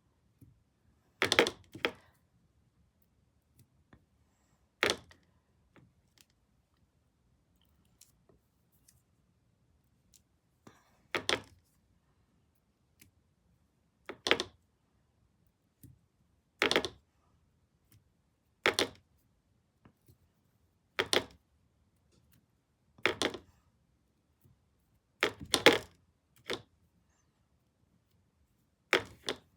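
Paintbrush dabbing paint onto the cardboard face of a jigsaw puzzle: short, sharp scuffs every two to three seconds, about ten in all.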